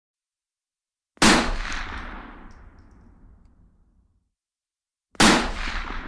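Two rifle shots about four seconds apart, the first about a second in and the second near the end, each a sharp crack followed by a long echoing tail that dies away over about three seconds.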